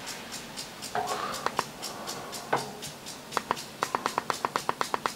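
Remote-control buttons being clicked to step through a satellite receiver's transponder list: a few scattered clicks, then a quick even run of about six presses a second near the end.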